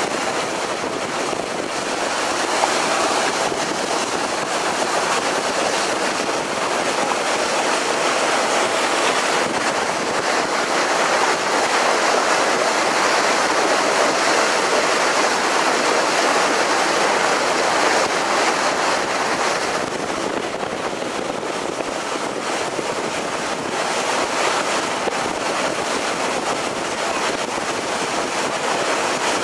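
Steady rush of water along the hull of a moving harbour ferry, with wind on the microphone, swelling a little in the middle.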